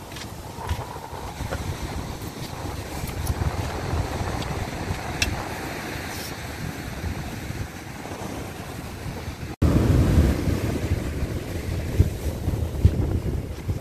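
Surf breaking on a sandy beach, with wind buffeting the microphone. About ten seconds in the sound cuts off for an instant and comes back with a louder low wind rumble.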